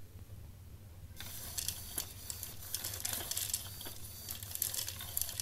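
Voice-controlled 3D printed cat feeder dispensing dry kibble: its servo turns a worm drive that pushes pellets out, and they rattle and crackle into the bowl in a dense run of small ticks starting about a second in.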